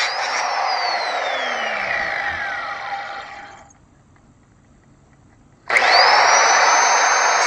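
Porter Cable 7406 4.5-inch angle grinder working metal. Its motor whine falls steadily as it spins down after being switched off and fades out about three and a half seconds in. After a short pause it starts again abruptly, the whine rising quickly to full speed, with loud grinding noise as the disc bites into the metal.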